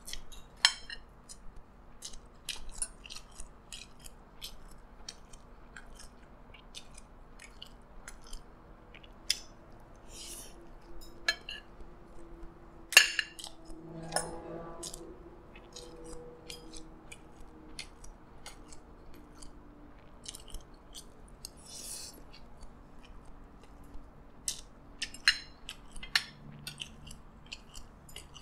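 Close-up eating sounds of fried rice being chewed, with scattered sharp clicks of a metal spoon and fork against a ceramic plate; the loudest click comes about 13 seconds in.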